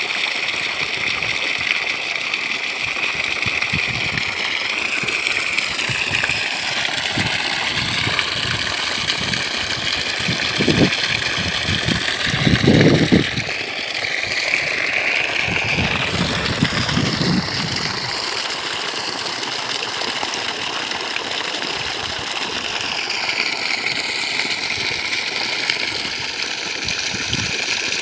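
Water gushing steadily from a borewell's outlet pipe and splashing into a muddy pool. A few low rumbling bumps come through in the middle, the loudest about thirteen seconds in.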